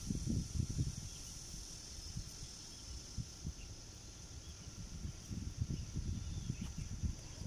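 A steady, high-pitched insect chorus, with low irregular rumbles coming and going.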